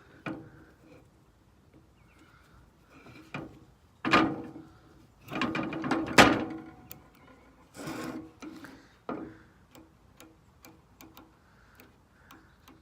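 Clicks and rattles of a combination bike lock being handled as its combination is entered, with small ticks scattered throughout and louder clattering bursts about four seconds in, from about five to six and a half seconds, and near eight seconds.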